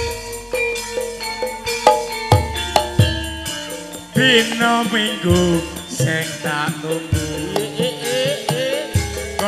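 Javanese gamelan music accompanying a wayang kulit shadow-puppet play: pitched metallophone notes over low drum strokes, with a singing voice coming in about four seconds in.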